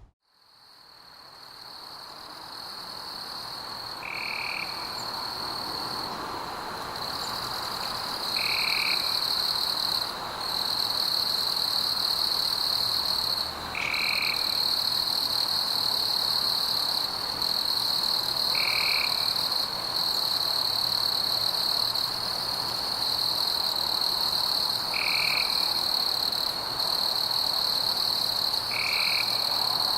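Night chorus of frogs and insects: a steady high-pitched trill that fades in over the first few seconds, with short calls breaking in about every four to six seconds.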